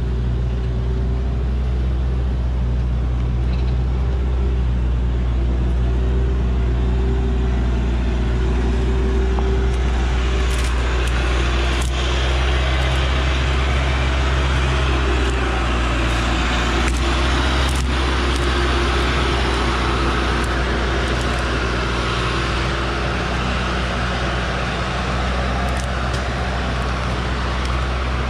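Old Hoa Mai truck's diesel engine running steadily under load as the log-laden truck crawls over a rough forest track. It grows noisier from about ten seconds in as the truck passes close, with a few sharp cracks between about ten and eighteen seconds in.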